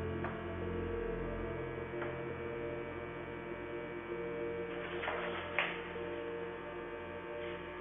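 Steady droning hum of an ambient music pad, its held notes shifting every few seconds. A brief scuffing noise and a click come about five seconds in.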